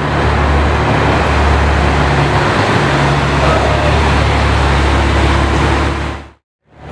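Ferrari 812 Superfast's V12 engine running steadily at low revs as the car rolls slowly by. The sound fades out about six seconds in.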